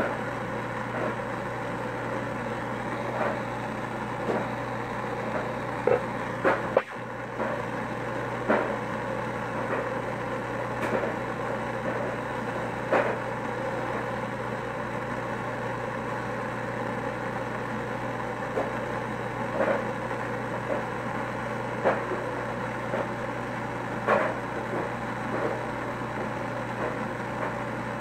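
Steady hiss of a brass gas torch's flame burning on its fuel cylinder, with short sharp clicks every second or two.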